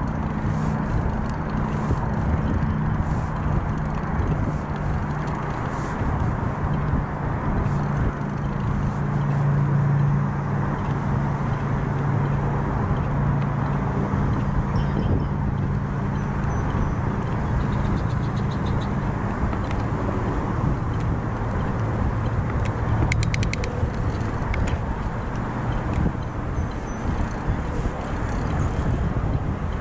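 Riding noise from a bicycle and its rider's chest-mounted camera: wind and tyre noise, with a steady low hum that slowly drops in pitch. A brief rapid clicking comes about 23 seconds in.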